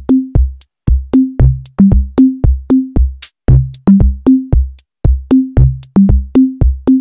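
Intro music: a fast electronic drum beat of punchy low drum hits, about three to four a second, tuned to a few different pitches, each with a sharp click on top.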